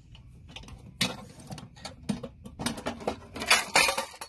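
Metal ammo can being unlatched and opened: a run of sharp metallic clicks, clanks and scrapes, starting about a second in and loudest near the end.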